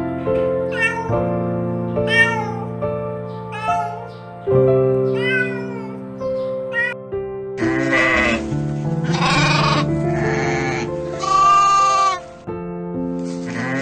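Cats meowing in short, high mews about once a second, over background music. About seven and a half seconds in, goats take over, bleating four times in long, wavering calls.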